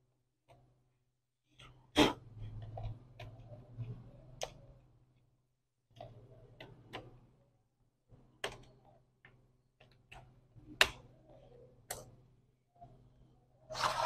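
Irregular plastic clicks and knocks as an HP G4 laptop's RAM module is pulled out and reseated in another slot, with a faint steady low hum underneath.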